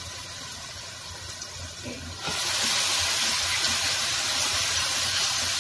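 Potato, brinjal and tomato pieces frying in oil in an aluminium pot, a steady sizzle that jumps louder about two seconds in as a metal ladle stirs them.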